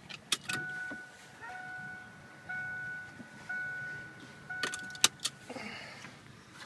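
A car's warning chime sounding in about one-second tones with short gaps, five times over, with sharp clicks at the start and a cluster of clicks, one very loud, about five seconds in; the chime stops just after the loud click.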